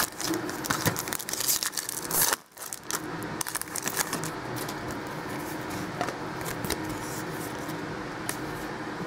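Foil wrapper of a Topps Platinum football card pack being torn open and crumpled: sharp crackling for about two seconds, then a brief lull and quieter rustling as the cards are handled.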